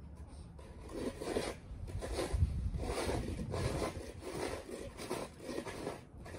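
Snow being scraped and crunched by hand in repeated short strokes, about two a second, with a low rumble about two and a half seconds in.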